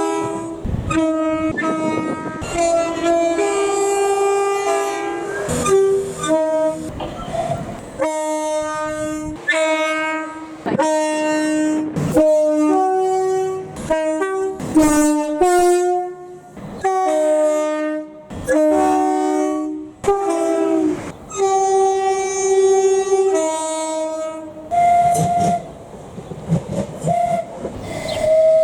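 Train's multi-tone horn playing a long tune of many short and held notes on several pitches.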